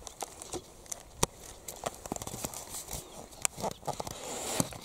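Scattered light clicks and knocks from a food jar and cutlery being handled, a few sharp ones standing out about a second in and again about three and a half seconds in.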